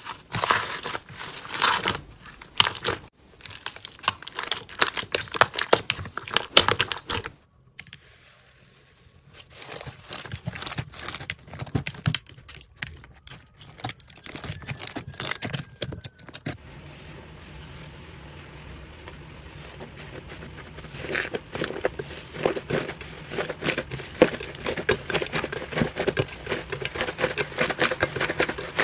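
Slime being squished and pressed, with dense, irregular crackling and popping. The sound breaks off to a quieter stretch about eight seconds in and goes softer again in the middle before the crackling picks back up, as one clip gives way to the next.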